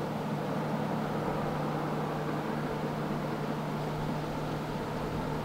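Diesel train engine running steadily with a constant low hum and an even rumble.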